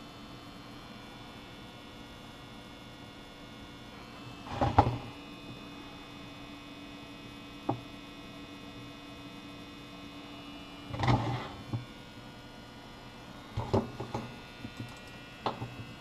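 Steady electrical hum with a few brief rustling handling noises and a single sharp click while epoxy putty is worked by hand onto a sculpture.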